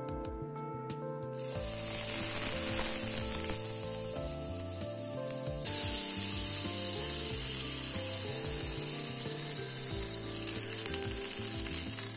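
Butter sizzling on a hot dosa tawa (flat griddle): a steady frying hiss that starts about a second and a half in and turns suddenly louder about halfway through. Background music plays throughout.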